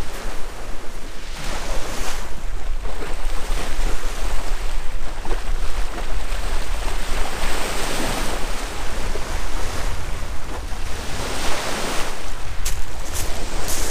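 Sea waves washing against the shore in slow surges, with wind buffeting the microphone as a steady low rumble.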